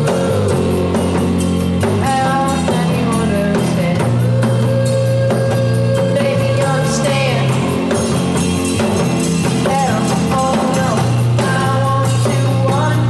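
Indie rock song playing, with drums and singing.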